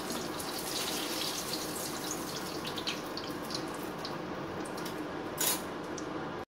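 Hot oil sizzling with small crackles in a frying pan, the heat just switched off, as a battered hake steak is lifted out with metal tongs. A short louder scrape near the end as the tongs are set down.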